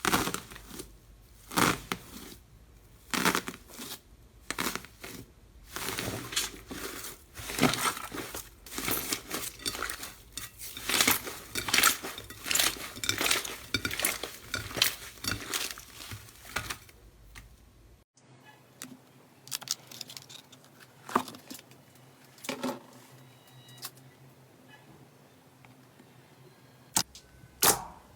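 Slime being squeezed and poked by hand, giving dense crackles and clicks. About eighteen seconds in the sound cuts to a quieter stretch with only scattered sharp clicks.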